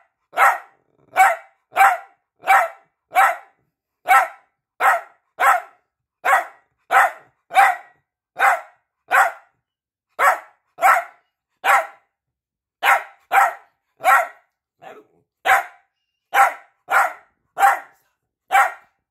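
Piebald dachshund barking over and over for attention: short barks, one or two a second at an uneven pace, with a pause of about a second near the middle.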